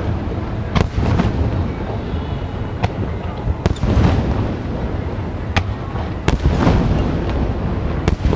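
Aerial fireworks bursting in quick succession, sharp reports over a continuous low rumbling boom from the shells.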